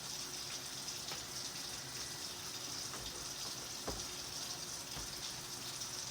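Kitchen tap running steadily, with a couple of light knocks about one and four seconds in.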